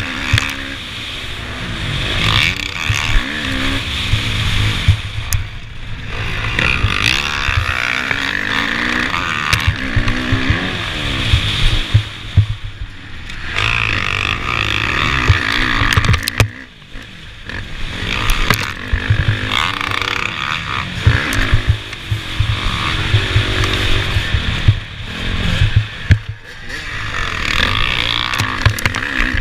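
Motocross bike engine racing hard, heard from the rider's own helmet, its pitch climbing and falling again and again as the throttle is worked through the gears, with brief drops in level just past halfway and again near the end.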